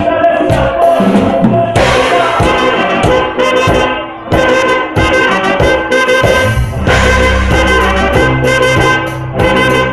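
Live cumbia band playing loud: a brass-like melody of held notes over drum kit, bass and a metal güiro scraping the beat.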